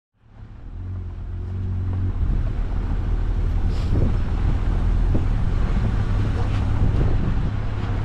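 Vehicle engine running steadily while driving, with wind noise on the microphone and a few light knocks about halfway through. The sound fades in over the first two seconds.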